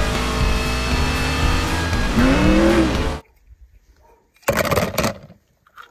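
Race car engines running at speed from an animated racing scene, with music under them, cutting off abruptly about three seconds in. About a second and a half later comes a short noisy burst.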